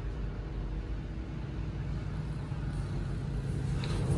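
A motor vehicle on the road outside, its engine and tyre noise a low rumble that grows steadily louder as it approaches.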